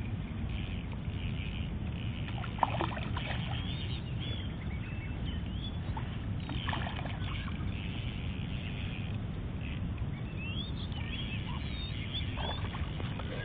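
Steady low rumble of wind on the microphone, with birds chirping now and then and a sharp click about two and a half seconds in.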